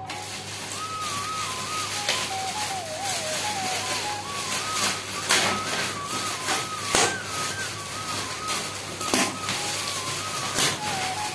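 Metallic foil gift wrap crinkling and tearing as a present is unwrapped by hand, with sharper rips every couple of seconds. A simple tune, one note at a time, plays through it as background music.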